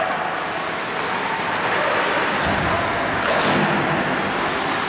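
Steady rushing noise of an ice hockey rink during play, with skate blades scraping the ice; it grows briefly louder a little past halfway.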